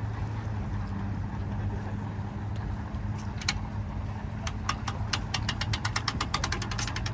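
An engine idling steadily, with the ratchet of a boat trailer's hand winch clicking over and over from about a third of the way in, the clicks coming faster toward the end as the winch is worked.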